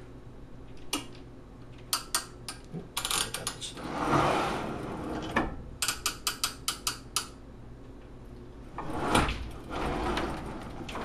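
Morgan Line-O-Scribe proofing press being worked by hand: sharp mechanical clicks as the pressure setting is raised, then the cylinder carriage rolling along the bed with a sliding rumble. A quick run of about five clicks a second follows, and a second roll of the carriage comes near the end.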